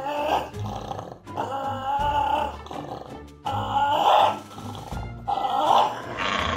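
A pet animal making several drawn-out, wavering vocal calls over background music with a low, repeating beat.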